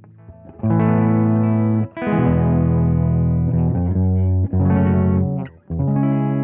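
Electric guitar played through an iSet Hot distortion pedal: a riff of held, saturated chords starting about half a second in, with short breaks between them.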